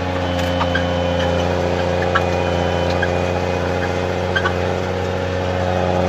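Snowcat engine running steadily, heard from inside the cab, with a few light clicks and rattles over the hum.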